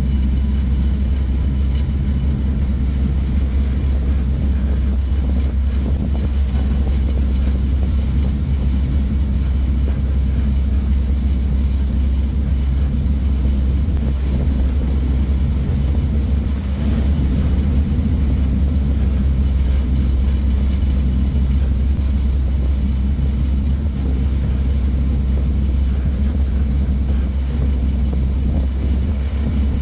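Steady low drone of a harbour ferry's engines while under way, an even rumble that holds without change.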